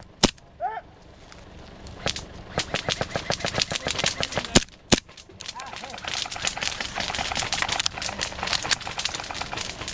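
Airsoft guns firing: sharp pops, scattered single shots at first, then fast runs of shots from about six seconds in.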